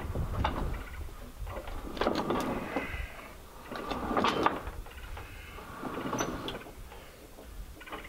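Squeaking and creaking in about four separate bursts of a second or so, wood and metal working against each other as the heavy new cedar sawmill carriage frame is lowered and settled into place.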